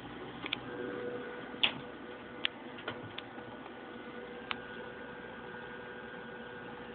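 Quiet room tone with a faint steady hum, broken by a handful of short sharp clicks and taps, the loudest about one and a half seconds in, then fewer toward the middle.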